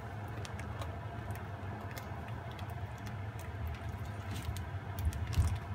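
Plastic spoon stirring a thick coconut-milk dessert in a stainless steel pot, with scattered light clicks and scrapes of the spoon against the pot over a steady low hum.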